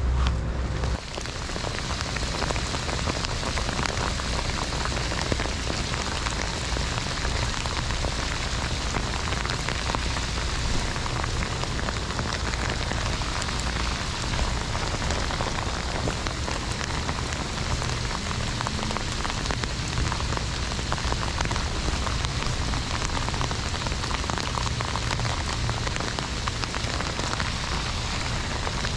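Heavy rain falling steadily on a pond and grassy bank, a dense, even hiss of drops. A low rumble cuts off about a second in, just before the rain sound sets in.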